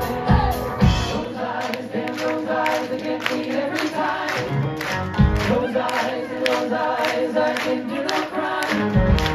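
Live pop-rock band in a breakdown: the drums drop out about a second in, leaving voices singing over held chords and a steady handclap beat about twice a second, and the drums come back in near the end.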